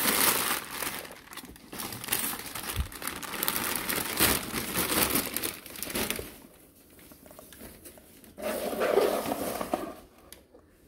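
Thin plastic packaging bag crinkling and rustling as it is pulled off an air fryer, dense for about the first six seconds. After a quieter pause, a shorter bout of rustling and handling noise comes near the end.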